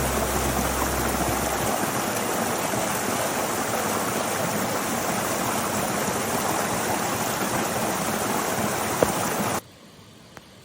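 Small waterfall and stream water rushing steadily, cutting off abruptly near the end.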